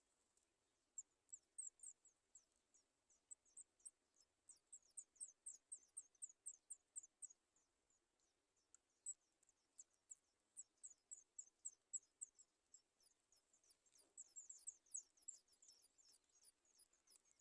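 Faint, high-pitched chirping of baby birds in the nest. Short downward-sliding notes come several a second in irregular runs, starting about a second in.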